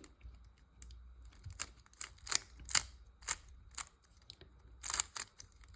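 GAN 13 Maglev 3x3 speed cube being turned by hand while being solved: an irregular run of short, sharp clicks as the layers turn, some in quick pairs.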